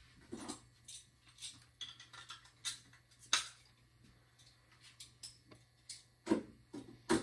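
Irregular light clicks and taps, roughly one or two a second, some with a dull knock to them, the strongest knocks near the end, over a faint steady low hum.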